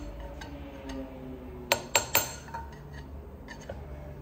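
Hammer striking a punch set in a Suzuki Samurai transmission case: three sharp, ringing metallic strikes in quick succession about two seconds in, with a few lighter taps before and after.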